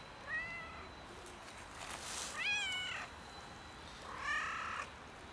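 A tabby-and-white cat meowing three times, short calls that rise and fall in pitch, about two seconds apart, the middle one the loudest.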